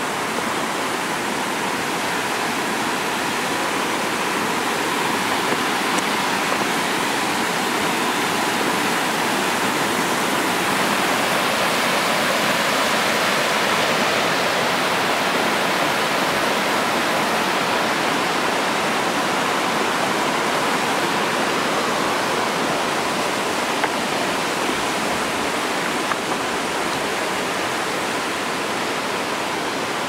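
A waterfall cascading over a rocky slope, giving a steady rush of water that swells slightly in the middle.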